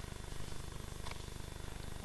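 Steady low hum of room tone picked up by the lectern microphone, with a faint click about a second in.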